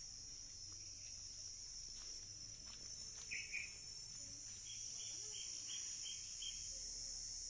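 Crickets trilling in a continuous high-pitched chorus. A bird calls briefly about three seconds in, then gives a run of about six short repeated notes.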